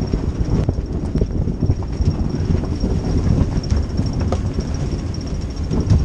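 Wind buffeting the microphone and water rushing past the hull of a sailing yacht heeled hard over in rough seas, with scattered knocks and clicks.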